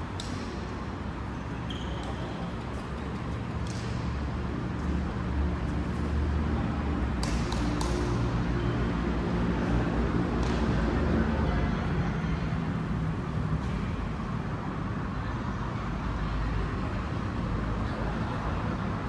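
Low engine rumble from a vehicle, growing louder to its peak about halfway through and then easing off, with a few sharp clicks.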